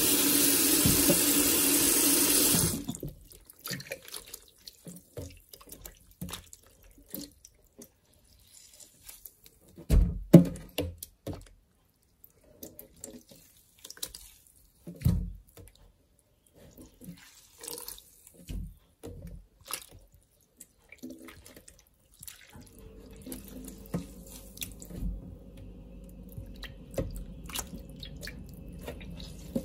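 Kitchen tap running into a bowl of water in a stainless-steel sink, shut off abruptly about three seconds in. Then scattered splashes and sloshing as hands swish and squeeze coral mushrooms in the bowl, with a louder splash about ten seconds in. From about two-thirds of the way through, a faint steady hum lies under the splashing.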